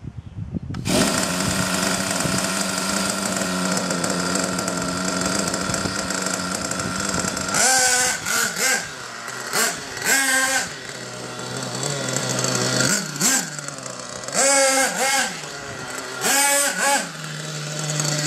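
SH PT21-P3 3.48 cc nitro engine of a 1/8 RC buggy, started by remote, bursts into running about a second in and runs steadily for several seconds. It then revs up and down in short repeated blips as the buggy drives, settling back to a lower steady idle near the end.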